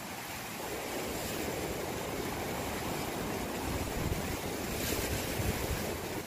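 Sea surf washing in against shore rocks: a steady rushing of waves, with some low wind rumble on the microphone.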